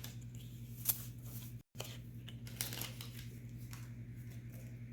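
Trading cards being handled and flipped through: a few soft slides and snaps of card stock over a steady low hum. The sound cuts out completely for a moment about a second and a half in.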